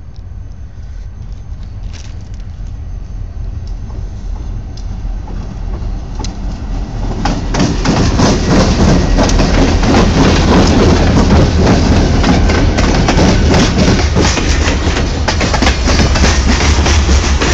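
Diesel freight locomotive approaching on the adjacent track, its low rumble growing steadily louder until it passes close by about seven and a half seconds in. Loaded hopper cars then roll past at close range, their wheels clacking in a dense run over the rail joints.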